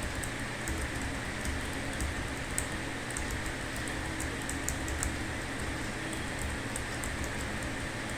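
Computer keyboard being typed on: light, irregular key clicks a few per second over a steady background hiss.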